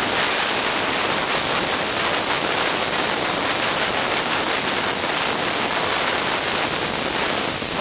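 Compressed-air blow gun giving a loud, steady hiss as it blasts air onto a freshly MIG-welded sheet-steel seam, cooling the weld so the panel doesn't distort from the heat.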